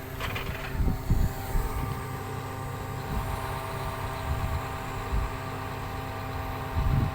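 Engine of a block-handling construction machine running steadily with a constant hum, with a few brief low thumps about a second in and near the end.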